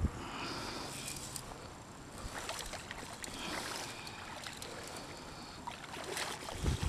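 Light water sloshing and trickling with scattered small clicks, from a hooked largemouth bass being brought in at the water's edge. Low rumbles of wind or handling come in near the end.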